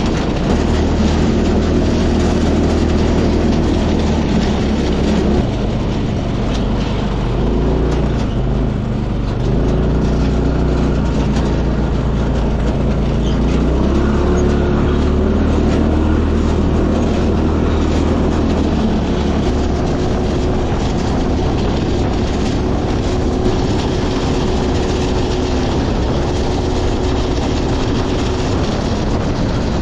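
Yerfdog go-kart's 301cc Predator single-cylinder engine running while the kart is driven, its pitch rising and falling several times as the throttle changes.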